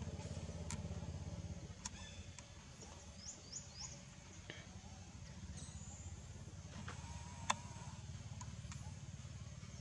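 Quiet outdoor background: a steady low rumble with scattered faint clicks and a quick run of three short high chirps about three seconds in. A single sharp click comes about seven and a half seconds in.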